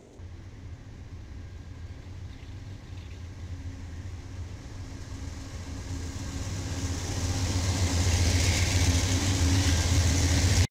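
BNSF diesel-electric locomotive drawing near and passing close, its engine on fire at the exhaust. The engine's low, steady drone grows steadily louder. From about six seconds in, a rising hiss of wheels on rail joins it.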